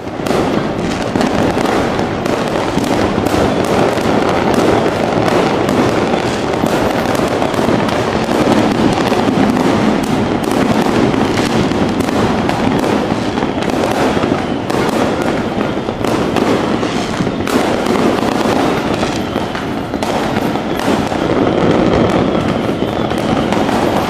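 A dense, continuous barrage of fireworks: rapid crackling pops and bangs overlapping without a break.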